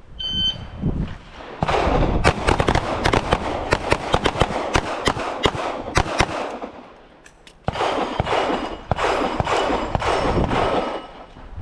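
A short beep, then several handguns firing at once along a firing line: rapid overlapping shots in two strings with a lull of about a second between them.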